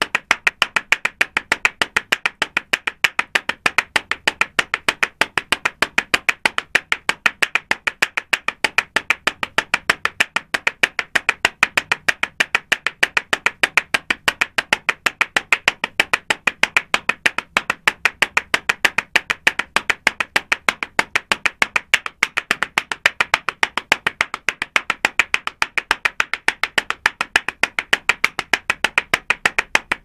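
Footsteps of someone running in sandals on concrete: sharp slaps in a steady, even rhythm of about four footfalls a second.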